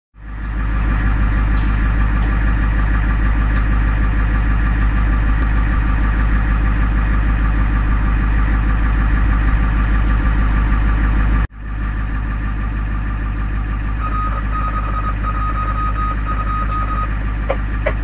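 Ambulance engine idling steadily, in two takes: the first stops abruptly about two-thirds of the way in and a second idle starts at once. Over the second idle a steady high beep sounds for a few seconds near the end.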